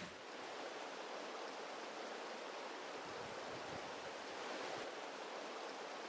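Steady, low rush of flowing river water.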